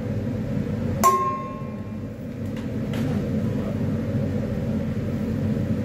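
A stainless steel mixing bowl knocked once about a second in, giving a sharp clang that rings briefly and fades, over a steady low hum.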